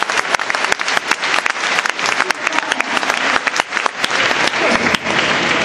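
Audience applauding in a large hall: a dense, continuous patter of many hands clapping.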